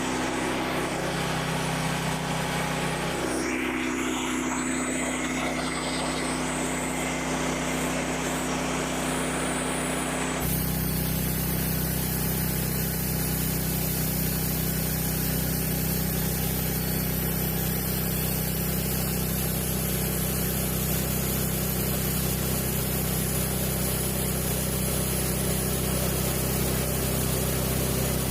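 Portable band sawmill's small gasoline engine running steadily. About ten seconds in the sound changes abruptly and becomes fuller and slightly louder.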